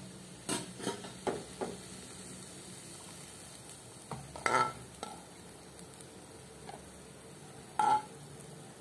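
Stir-fried kailan being tipped and scraped out of a frying pan onto a plate: a few short scrapes and taps in the first two seconds, then two louder clinks with a brief ring, one about halfway and one near the end.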